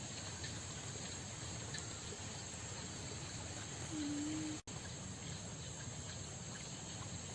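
Crickets chirring in a steady high-pitched chorus. About four seconds in, a short steady low hum is heard, followed by a split-second gap in the sound.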